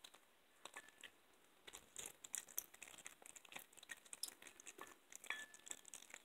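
An 11-month-old blue tortoiseshell cat gnawing a raw chicken back: faint, irregular crunching and clicking of teeth on bone and cartilage, getting busier after about two seconds.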